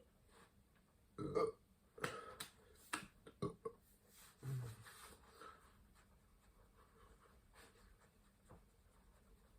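A man burping from drinking cola: a few short burps in the first five seconds, with small clicks and knocks between them, and only faint sounds after.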